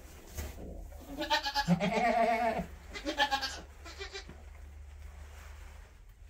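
Kiko Nubian doe bleating in labor with a second kid: one long, wavering call, then a shorter one a moment later.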